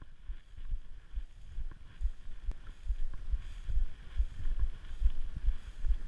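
Footsteps of someone walking through tall dry grass: low thumps about twice a second, with faint rustling and wind on the microphone.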